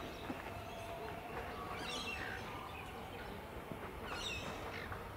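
Birds chirping, with two short calls about two seconds in and again past four seconds. Under them is the faint, steady rumble of an Alstom X'Trapolis electric multiple-unit train moving away.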